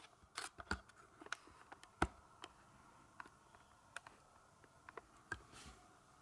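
Scattered faint clicks and taps in a quiet room, irregular at about one or two a second, with a sharper tap about two seconds in.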